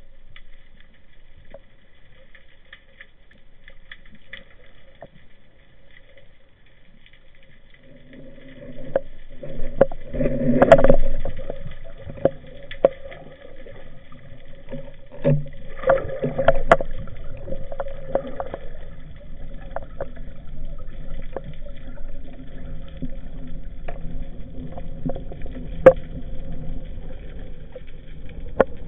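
Boat engine droning, heard underwater, coming in about eight seconds in and holding steady, with scattered sharp clicks and knocks over it.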